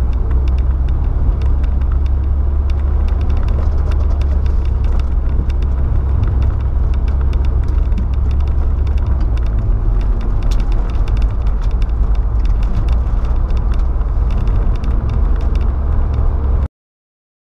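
Volkswagen Saveiro pickup on the move, heard from inside the cab: a steady low rumble of engine and road noise with faint fine ticking over it. It cuts off abruptly to silence near the end.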